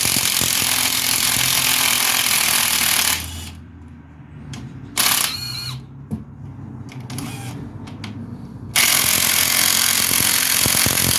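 Impact wrench hammering on a stubborn brake bolt: one long run, a short burst about five seconds in, and another long run near the end.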